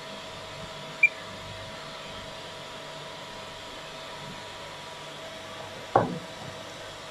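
Steady machine hum with two faint steady tones, broken about a second in by one short electronic beep from a touchscreen button pressed on a manipulator's handheld control pendant. About six seconds in comes a single knock.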